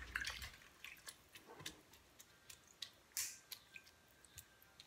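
Faint scattered clicks and small wet sounds as a rubber-gloved hand presses small fish down under brine in a glass jar, with one brief louder swish about three seconds in.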